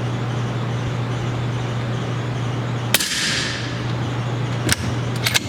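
Suppressed .308 Ruger Precision Rifle firing one subsonic 200-grain Speer soft-point round about three seconds in: a short, sharp, muffled report with a brief ringing tail and no loud supersonic crack. A few sharp clicks follow near the end over a steady low hum.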